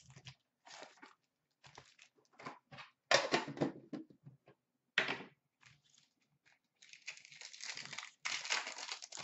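Trading card packs and boxes being handled: scattered clicks, taps and rustles of cardboard and packaging, then a longer crinkling of a pack wrapper being torn open near the end.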